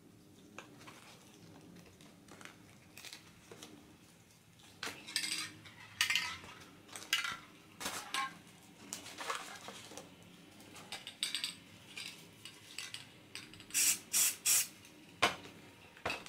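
Aerosol spray-paint cans giving short, irregular spurts of hiss, mixed with light metallic clinks of cans and tools. Three quick spurts come close together near the end.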